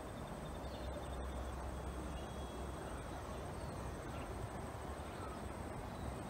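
Outdoor ambience: a steady low rumble under a thin, high, continuous insect trill.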